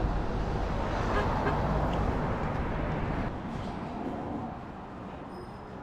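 Steady outdoor background noise, mostly a low rumble, easing off over the last second or so.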